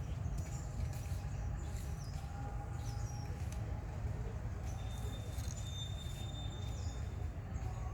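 Outdoor ambience: scattered short, high animal chirps and squeaks over a steady low rumble, with one thin held high whistle lasting about two seconds past the middle.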